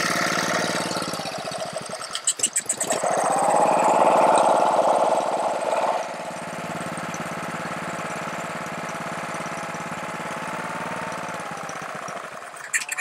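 Honda small engine of a pressure washer running on choke. It gets louder for a few seconds from about three seconds in, then settles into a steady run. It only keeps running with the choke on, which the owner takes for a carburetor problem.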